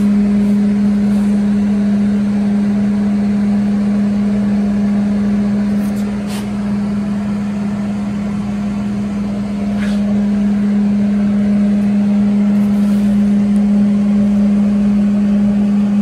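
Shop heater running with a loud, steady hum, with two light taps in the middle.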